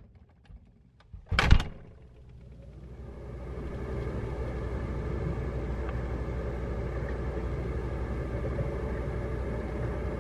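A short knock about a second and a half in, then a steady low mechanical hum with a few steady tones that fades in and holds.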